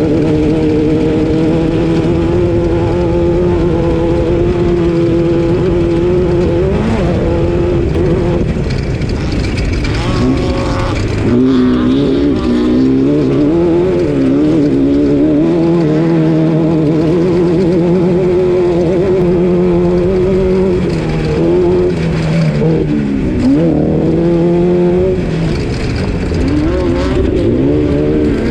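Class 12 off-road race car's engine running hard, its pitch rising and falling again and again with the throttle, over a constant rumble of noise.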